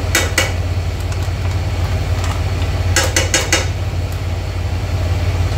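Sharp taps against a frying pan as spice powder is tapped out of a packet: two near the start, then four quick ones about three seconds in. A steady low hum runs underneath.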